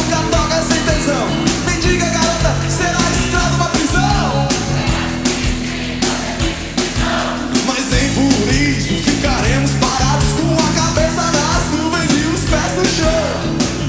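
Rock song with electric guitar over bass and drums, in a passage with no sung words.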